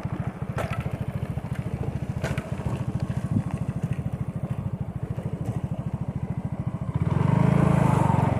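Small motorcycle engine running with a fast, even putter, with a few sharp rattles. About seven seconds in it revs up louder, then cuts off abruptly.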